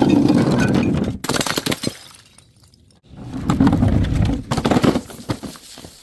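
Glass bottles shattering, two loud crashes about three seconds apart, each followed by shards clattering and tinkling as they settle; each break starts and stops abruptly.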